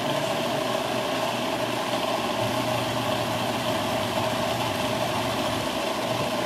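Electric food processor motor running steadily, blending a wet spice paste of lemongrass, garlic and spices.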